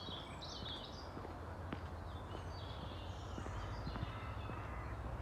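Small birds singing in short chirping phrases, twice, over a steady low rumble of wind on the microphone.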